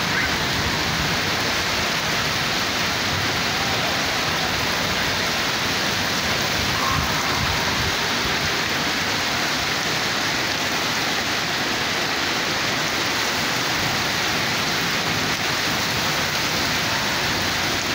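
Monsoon rain falling steadily on concrete ground: an even, unbroken hiss of rain.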